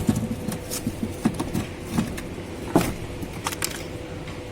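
A series of knocks, clunks and scrapes as the window air conditioner unit is handled and propped up on a brick, the loudest at the start and about three seconds in, over a steady faint hum.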